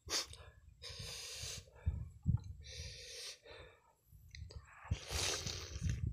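A man breathing heavily in and out through nose and mouth while eating, three long hissy breaths about two seconds apart, over low rumbling handling noise as he tears into a whole boiled chicken.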